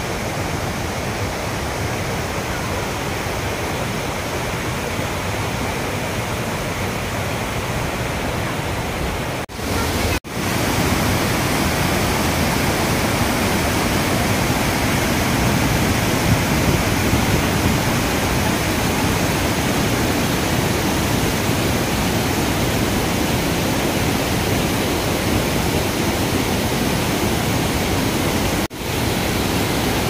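Rain-swollen stream rushing over boulders in white-water rapids: a loud, steady rush of water. It cuts out briefly about ten seconds in and again near the end, and is a little louder after the first break.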